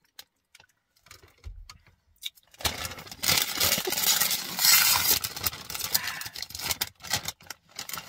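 Plastic chip bag crinkling and rustling continuously as it is handled and opened, starting about two and a half seconds in; before that, only a few faint clicks and a low thump.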